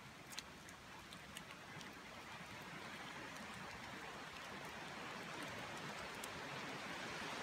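Steady hiss of rain falling on woodland foliage, growing gradually louder, with a few light ticks.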